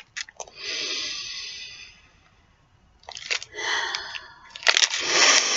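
A person sniffing a wrapped candy held to the nose: one long inhale through the nose about half a second in, then after a pause more breathy hissing, loudest near the end.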